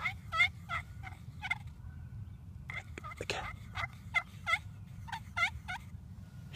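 A wild turkey yelping call: a series of short yelps, about three notes a second, in three runs with short pauses between.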